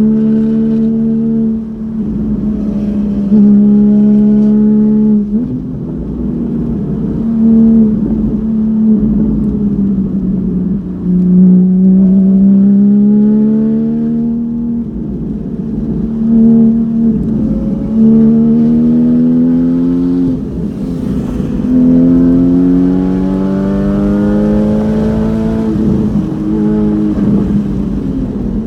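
Porsche Cayman GT4's flat-six with an open exhaust at full throttle on track, heard from inside the car: the engine note climbs steadily and drops sharply at each gear change, over and over, with rougher stretches between the climbs.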